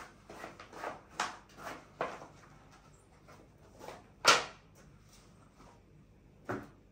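Sandals and shoes being handled and set down on a shoe rack: a string of light knocks and clatters, the loudest about four seconds in.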